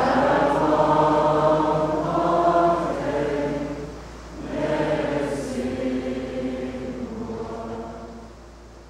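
A choir of mixed young voices singing a slow song together in sustained phrases. The singing pauses briefly about four seconds in, then resumes and fades toward the end.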